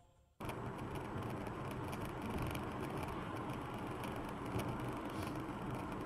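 Steady road noise of a car driving, picked up inside the cabin by a dashcam microphone; it starts abruptly about half a second in.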